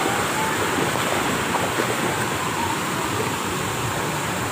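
Steady rush of water spraying and pouring from a water-park play structure onto a shallow pool, with faint distant voices.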